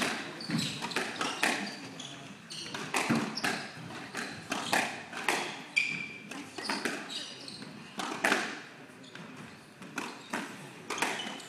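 Squash rally: the hard rubber ball smacked by racquets and cracking off the court walls, sharp hits about twice a second, with sneakers squeaking now and then on the hardwood floor.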